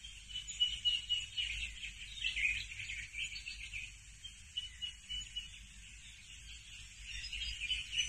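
Birds chirping and singing: many short calls and a few thin, held whistles, over a faint hiss.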